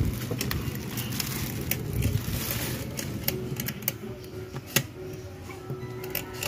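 Irregular clicks and clacks of hands working the latch and lock of an alloy motorcycle top box, with one sharper click a little before the end.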